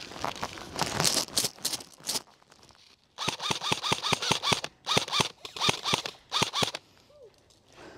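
Airsoft electric guns firing: a fast run of shots for the first two seconds, then, after a short pause, repeated short bursts of several rapid shots each, with a slight gearbox whine, stopping about seven seconds in.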